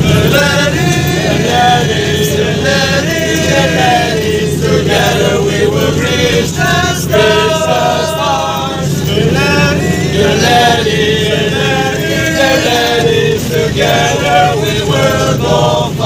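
A group of young men singing a song together inside a moving bus, with the bus's steady low engine and road rumble underneath.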